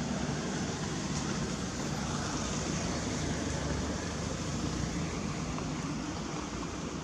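Steady outdoor background noise: an even hiss with a low rumble underneath and no distinct events.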